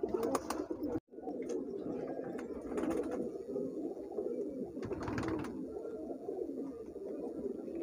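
Domestic pigeons cooing in a loft, many calls overlapping in a steady low chorus that briefly drops out about a second in.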